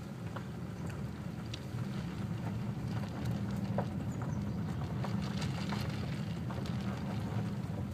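A car's road and engine noise heard from inside the cabin while driving: a steady low rumble, with scattered faint ticks and rattles.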